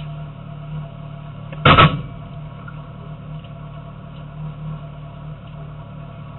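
Steady low hum inside the cabin of a stationary Renault Clio Williams rally car, with one loud, sharp thud a little under two seconds in.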